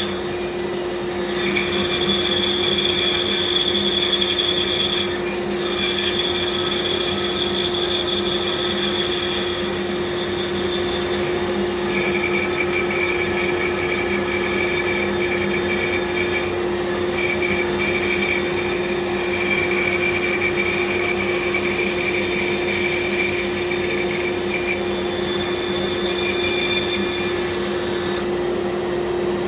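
Bandsaw running with its blade cutting through a block of wood. A steady motor hum sits under the noisy cut, with a high whine that comes and goes as the wood is fed.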